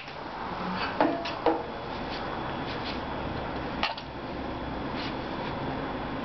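Metal tools clinking against metal fittings during air-conditioner refrigerant pump-down work: three sharp ringing clinks, two close together about a second in and one near four seconds, over a steady hum.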